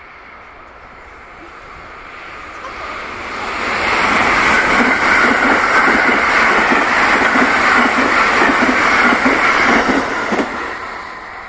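Thunderbird limited express passing at speed, its wheels clacking in a steady rhythm over the rail joints. The train noise builds over a few seconds, stays loud for about six seconds, then fades away.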